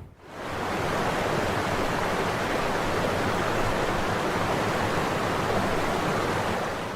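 Steady rushing water, an even hiss-like roar that fades in just after the start and then holds level.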